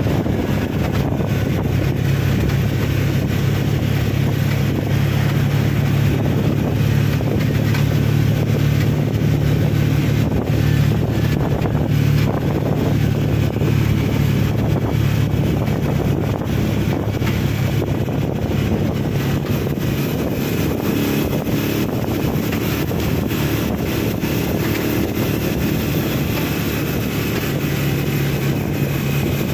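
A vehicle engine running steadily with wind noise on the microphone.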